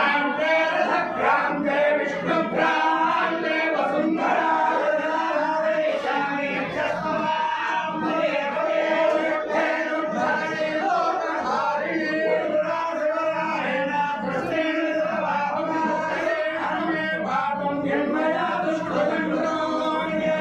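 Many men's voices chanting together in unison, a continuous devotional chant with a steady held note beneath it.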